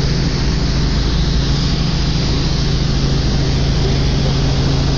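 Helicopter in flight heard from inside the cabin: a loud, steady engine and rotor noise with a constant low hum.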